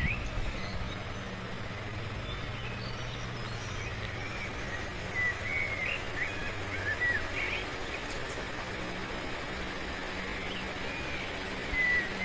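Outdoor ambience with small birds chirping: short, scattered calls throughout, over a steady low hum.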